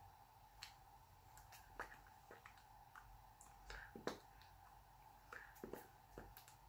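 Near silence: a faint steady hum with scattered soft clicks and taps as hands touch while signing.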